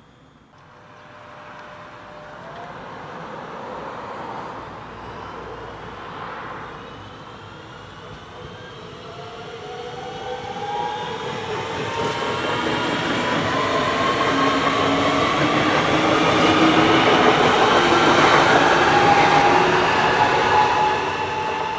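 An agilis electric multiple unit, an Alstom Coradia Continental, approaches and runs past at close range, growing steadily louder. Its motor whine rises in pitch as it comes on.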